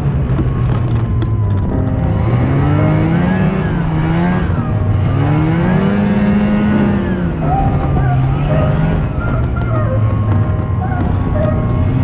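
Ski-doo Touring SLE snowmobile engine running under way, its pitch rising and falling as the throttle changes, with a steady rush of wind and snow noise.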